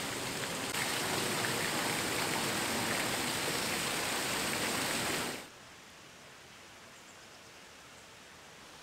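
Steady rush of water in a large river lock chamber, which drops away suddenly about five and a half seconds in, leaving only a faint hiss.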